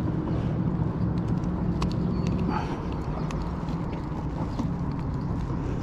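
Scattered sharp knocks and clicks of a bluefish being handled and unhooked on a kayak, with a couple of short high squeaks. Under it runs a steady low rumble of wind on the microphone.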